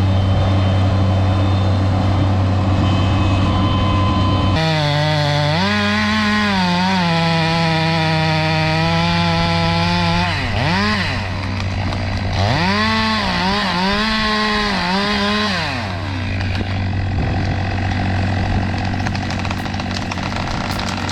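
Chainsaw running over a steady low engine drone. About four seconds in the saw comes in, revving up and down and holding at cutting speed, and it stops about twelve seconds later.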